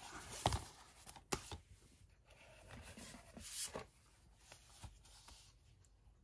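A plastic 4K Blu-ray case in a cardboard slipcover being handled: rustling and sliding with a few sharp clicks, the loudest about half a second and a second and a half in.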